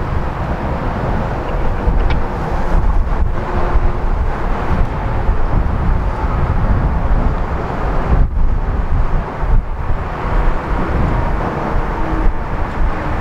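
Diesel freight locomotive approaching slowly at the head of an autorack train, its engine running steadily with a deep rumble, mixed with gusty wind on the microphone.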